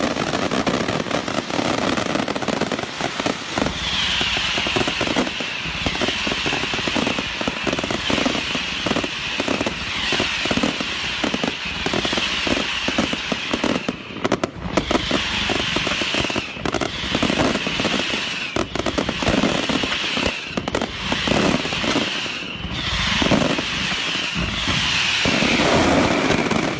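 Fireworks going off in a dense run of rapid crackling pops and bangs. From about four seconds in, a high-pitched sound recurs about every two seconds.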